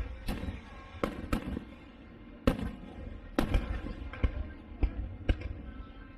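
Aerial fireworks shells bursting: a run of about nine sharp bangs at irregular intervals over a low rumble, the loudest two near the middle.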